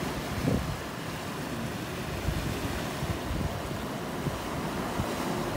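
Ocean surf washing over a rocky shoreline, with wind buffeting the microphone in uneven low gusts.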